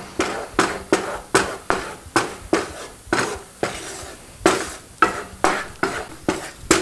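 Wooden spatula scraping around a nonstick skillet, stirring a butter-and-flour roux in quick, even strokes, about two or three a second.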